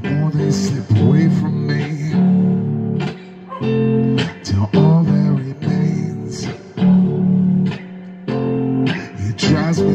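A man singing while playing chords on an electric guitar: a solo vocal and guitar performance of a song.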